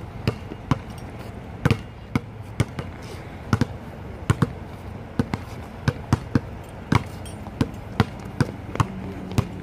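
A run of short, sharp thumps or knocks, irregular at about two or three a second.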